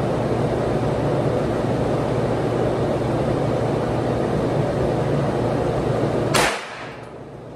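Steady ventilation noise of an indoor range, then a single sharp gunshot about six seconds in, after which the background drops noticeably quieter.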